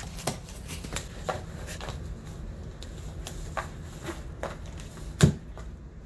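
A malamute's claws scratching and scraping at a cardboard shipping box as he paws at it, a run of irregular clicks and scrapes with one loud thump about five seconds in.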